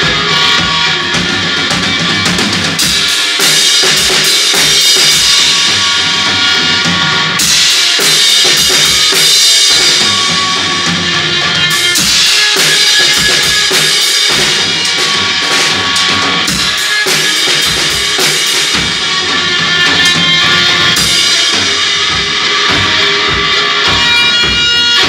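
Loud garage-punk band jam: distorted electric guitar, bass guitar and a drum kit pounding the kick drum, with cymbal crashes every few seconds.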